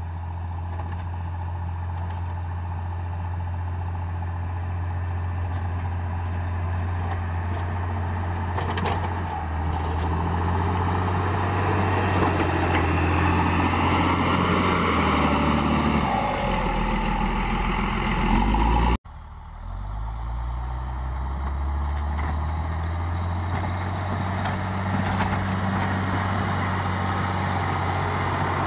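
LiuGong motor grader's diesel engine running steadily as its blade pushes loose soil, with a rising rush of moving earth in the middle. The engine note sinks lower about two-thirds of the way in, then there is a sudden break and the engine runs on again.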